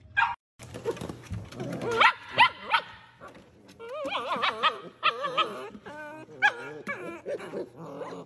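Several puppies yipping, whining and barking, with high-pitched wavering cries overlapping one another. The sharp yelps cluster a couple of seconds in and the longer wobbling whines follow.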